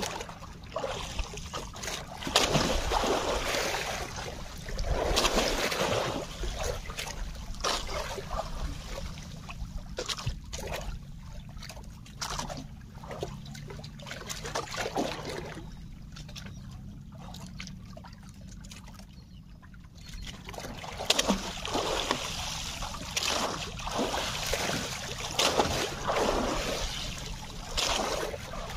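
Water splashing and trickling beside a small fishing boat, coming in irregular splashes that ease off for a few seconds a little past the middle.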